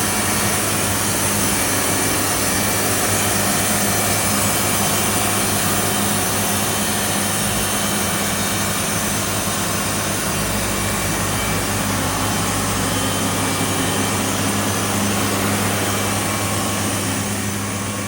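Sawmill machinery running steadily: a loud, even mechanical noise with a constant low hum.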